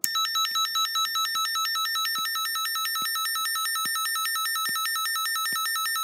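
Alarm tone from a red fire alarm speaker-strobe, driven by a homemade fire alarm panel going into alarm. It is a quite loud, harsh, steady electronic tone that starts abruptly and pulses rapidly for about its first second.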